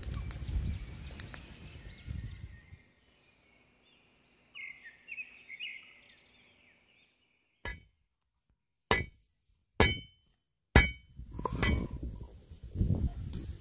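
Steel cleaver smashing ginger on a wooden chopping board: a run of sharp strikes about a second apart, the blade ringing briefly on each, the loudest sounds here. Before them, a wood fire crackles and faint bird chirps are heard.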